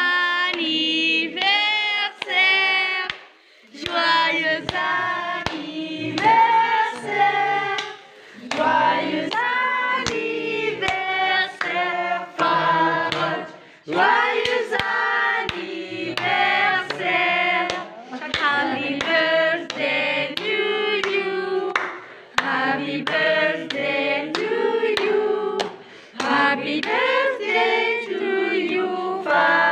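A group of people singing a birthday song together, with hand-clapping, in several phrases separated by short pauses.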